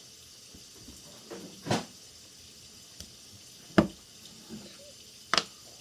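Plastic LEGO pieces clicking as they are handled and pushed together: three short, sharp clicks a second or two apart, the middle one the loudest.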